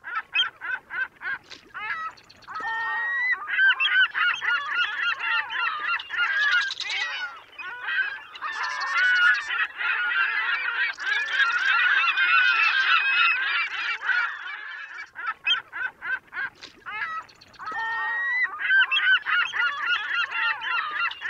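A flock of gulls calling over one another in loud, overlapping cries. Separate sharp calls in the first two seconds build into a dense chorus, which thins to scattered single calls about three-quarters of the way through before thickening again.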